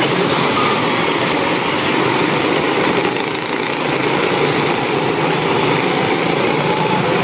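Pack of quarter midget race cars with small single-cylinder Honda 160 engines running together on the track: a steady, dense engine sound with a slight dip about three and a half seconds in.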